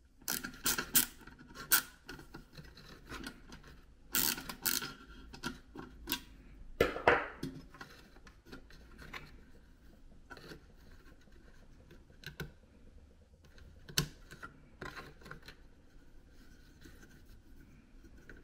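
Hand work on an Instant Pot pressure sensor: a screwdriver scraping and clicking as the new sensor is screwed into the pot's base, in bursts through the first seven seconds or so. After that come sparser light clicks and rubbing as its wires and connectors are handled, with one sharp click near the middle.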